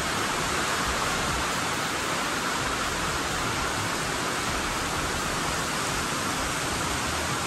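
Rain coming down, heard from inside a workshop as a steady, even hiss.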